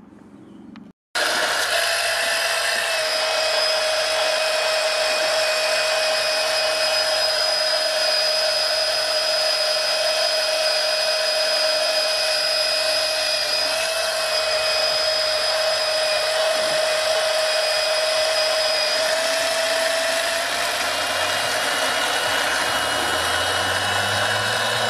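A small electric oil-transfer pump starts about a second in and runs steadily with a whine, pumping transmission oil into a BDU10 transmission. Its pitch rises slightly in the last few seconds as the supply cup is drained.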